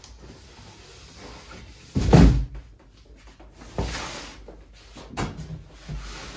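Cardboard packaging being handled: a heavy thud about two seconds in, then a rustling scrape and a few lighter knocks.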